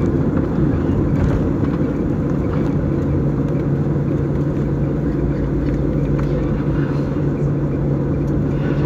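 Steady cabin noise inside a Boeing 737-800 moving slowly on the ground, its CFM56 engines at idle: a constant low rumble with an even hum throughout.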